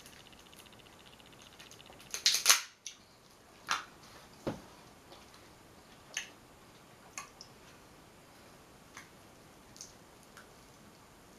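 King crab leg shell cracked apart by hand: a loud burst of crackling snaps about two seconds in, then scattered single sharp clicks and snaps as the shell is picked apart.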